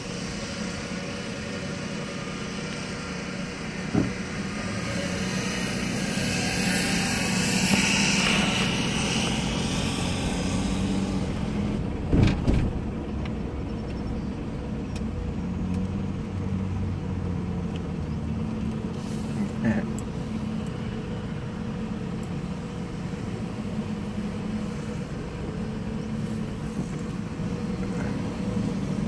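Car engine and tyre noise heard from inside the cabin: a steady low hum while driving slowly, with a few sharp knocks about 4, 12 and 20 seconds in.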